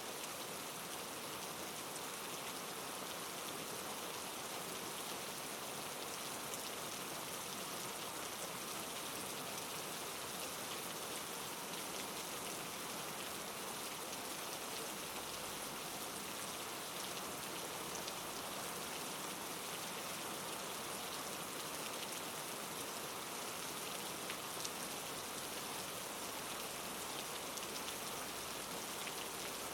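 Steady rain ambience played as white noise: an even hiss of rainfall with faint scattered ticks of drops.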